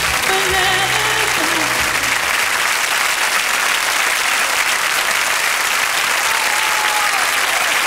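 Concert audience applauding loudly as the band's final chord dies away about two seconds in.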